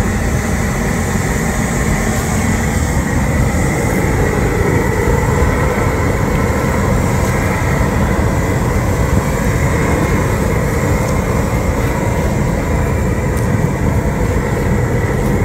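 A steady, loud, engine-like rumble, with a steel rake scraping and dragging through loose hot-mix asphalt.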